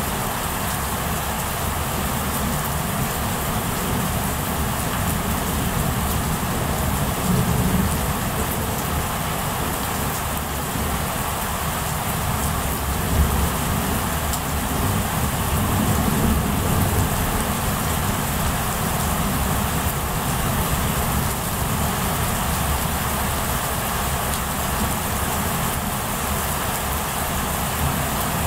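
Heavy rain falling steadily during a thunderstorm, with low thunder rumbling underneath and swelling a few times. The sound is harsh from the camera microphone clipping.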